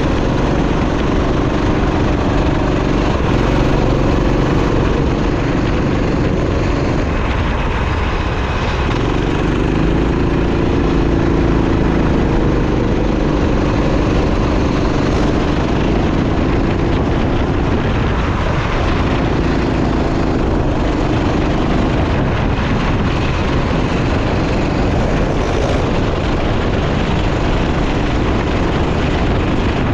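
Go-kart engine running hard at racing speed, its pitch rising and falling as the throttle opens and closes through the corners.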